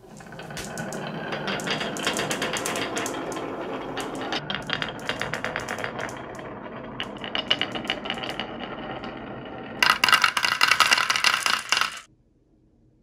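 Glass marbles rolling down the serpentine grooves of a HABA wooden wave-slope marble track, with a steady rumble and many clicks as they knock against each other and the wood. About ten seconds in comes a louder, denser clattering for about two seconds, which stops suddenly.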